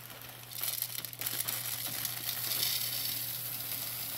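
Puffed rice cereal pouring from a plastic bag into a glass measuring cup: a steady rustling hiss of falling grains and crinkling plastic that starts about half a second in.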